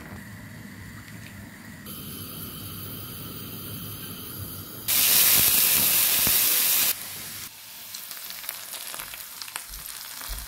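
Sliced onions frying in oil in a pan: a loud, even sizzle lasting about two seconds in the middle. Before and after it there is quieter steady kitchen noise with a faint hum, which changes abruptly several times.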